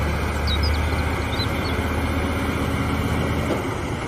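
Heavy truck's diesel engine running steadily with a deep low drone, pulling the heavy load of a large excavator on a lowboy trailer.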